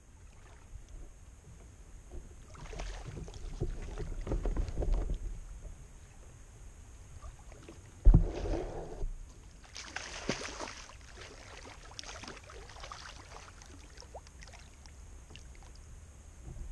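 Knocks and rustling on a plastic sit-on-top kayak as a fishing rod and gear are handled, with one sharp thump about eight seconds in and another burst of rustling a couple of seconds later.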